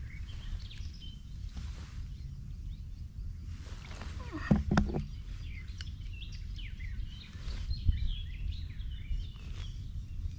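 Small birds chirping in a reed bed over a steady low rumble, with a couple of short knocks about halfway through.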